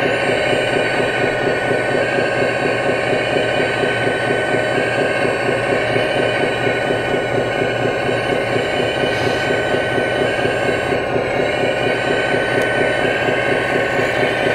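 Scale RC hydraulic excavator, a 1/14 Hitachi Zaxis 330 model, running steadily while it digs and lifts a bucket of topsoil. Its hydraulic pump and drive give a constant whine over a fast, even pulsing, and the tones shift slightly about eleven seconds in as the load on the hydraulics changes.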